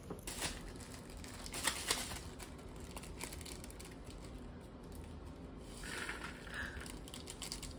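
Intermittent crinkling and rustling of packaging being handled, with an instant-noodle seasoning sachet being torn open and squeezed out near the end.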